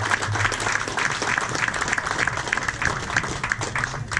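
A small crowd applauding, with many separate claps, which stop near the end.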